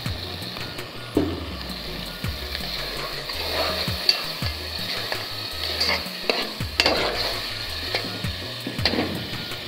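Onions and chopped tomato and pepper sizzling as they fry in a pot, stirred with a metal ladle that scrapes and knocks against the pot several times.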